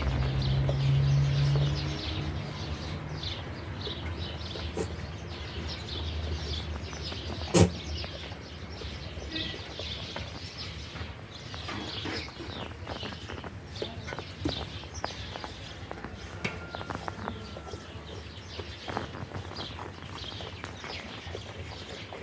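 Farmyard ambience: many small birds chirping again and again. A low drawn-out call fills the first couple of seconds, and there is a single sharp knock about seven and a half seconds in.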